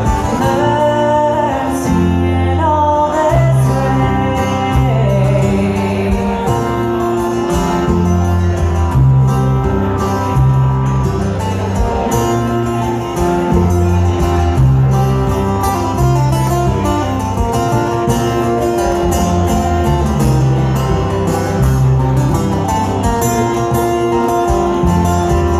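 Live acoustic bluegrass band playing: singing in the first few seconds over strummed acoustic guitar and plucked upright bass, then an instrumental passage over the steady bass line.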